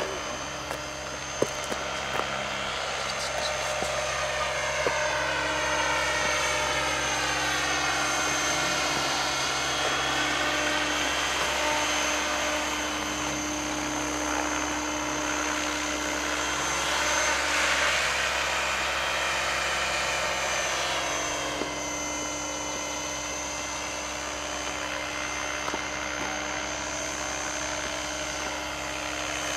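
Radio-controlled model helicopter flying, its motor and rotor whine rising and falling in pitch as it passes to and fro, loudest about two-thirds of the way through.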